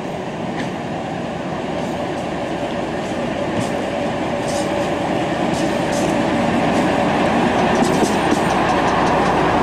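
SVT 137 'Fliegender Hamburger' diesel railcar approaching and passing close by, its steady engine hum and running noise growing louder throughout. A few sharp clicks of the wheels over rail joints and points come as it passes.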